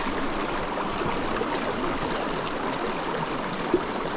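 Small mountain creek running steadily over rocks, an even rushing of water. A single brief click near the end.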